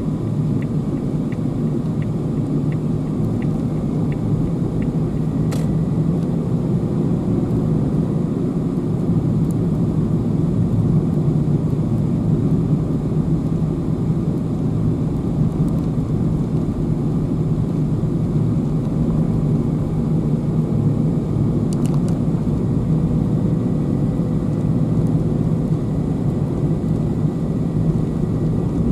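Steady road and engine noise heard from inside a moving car. A faint regular ticking runs for the first few seconds.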